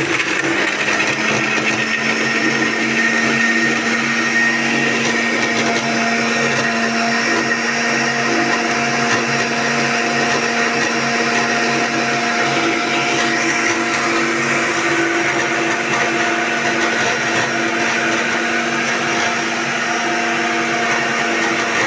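Xtreme juicer/blender motor running at a steady pitch, grinding green chillies, garlic and ginger with a spoonful of yogurt into a paste.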